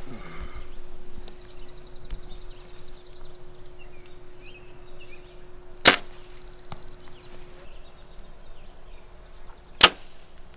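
Two compound bow shots about four seconds apart, each a single sharp snap as the string is released and the arrow leaves the bow.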